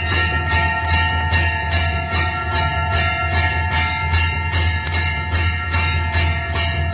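Temple bell rung rapidly and evenly, about four strokes a second, its ringing tones carrying on between strokes over a steady low hum.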